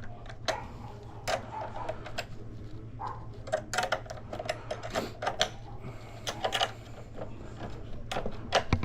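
Irregular metallic clicks and taps of a hand tool working loose the terminal bolts on a mobility-chair battery.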